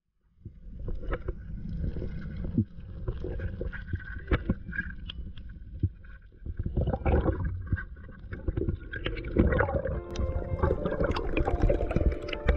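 Underwater sound picked up through an action-camera housing as a freediver swims up from the reef: a muffled rumble of water moving past the camera, with scattered clicks and knocks. It sets in abruptly just after the start and grows louder and busier toward the end.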